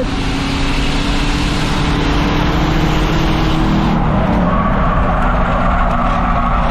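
Race car engine running hard at a steady pace on an oval, heard from onboard, over a steady rush of tyre and wind noise. The engine note dips slightly about four seconds in.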